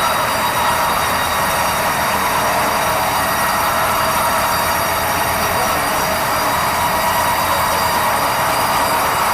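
Sawmill band saw cutting through a red meranti log: a steady, loud rushing noise with a high whine that holds throughout.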